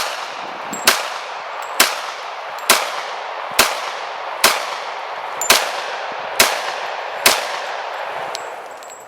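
Nine pistol shots from an HK USP Tactical in .45, fired at an even pace of about one a second, each followed by a long ringing tail. The string is three rounds each of standard-pressure .45 ACP, +P and .45 Super.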